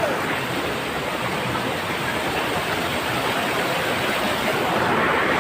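Waterfall: a steady rush of falling water, growing slightly louder near the end.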